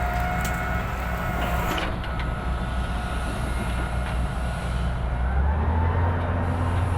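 Excavator's diesel engine running steadily with a thin hydraulic whine over it; about five seconds in the engine speeds up and the whine rises in pitch as the machine takes on load.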